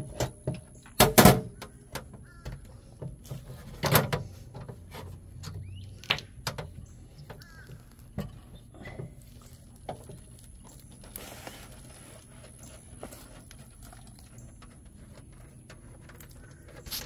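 Heavy battery cables being moved around by hand in a metal battery compartment, with scattered knocks and clinks. The loudest are a couple of sharp knocks about a second in and another at about four seconds, and the handling grows sparser in the second half.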